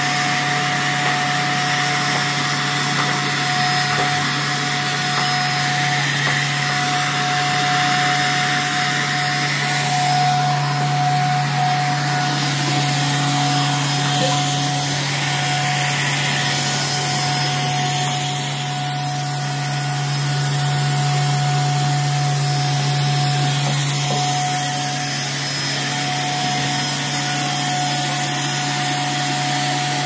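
Canister vacuum cleaner running steadily: a low hum and a thin steady tone over the rush of air.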